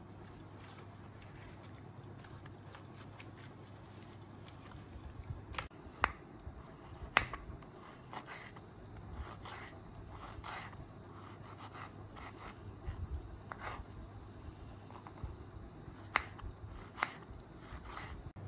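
Kitchen knife slicing fresh ginger on a cutting board: irregular sharp taps of the blade striking the board, some single and some in quick runs, starting a few seconds in. Before that there is a soft rubbing of paper towel pressed over raw pork.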